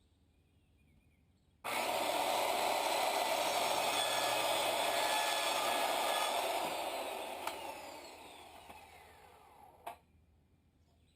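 Electric power saw starting suddenly, running for about five seconds while cutting wood, then winding down with a falling whine before it stops abruptly near the end.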